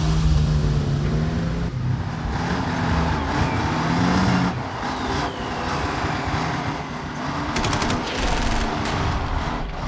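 A heavy vehicle's engine running, with a steady low hum that gives way about four and a half seconds in to rougher machine noise and a few sharp bursts near the end.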